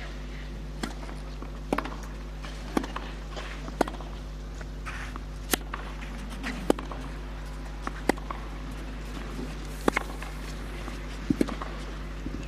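Tennis ball struck back and forth by rackets in a clay-court rally, opening with a serve: about ten sharp hits, roughly one every second or so, over a steady low hum.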